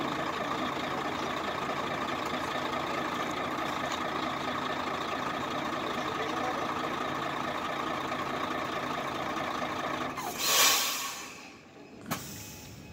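Mercedes truck's diesel engine idling steadily. About ten seconds in comes a loud burst of compressed-air hiss from the air brakes. The engine sound then drops away, and a single sharp click follows.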